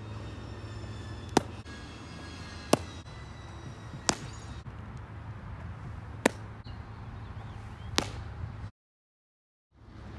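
Baseballs striking a catcher's gear during a blocking drill: five sharp impacts, one about every one and a half seconds, over a steady low rumble.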